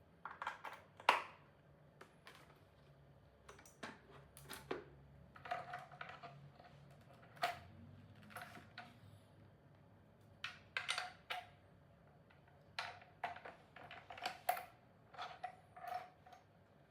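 Faint, irregular clicks and knocks in small clusters, with a brief ring after some of them, from parts of an electronic drum kit being handled or tapped.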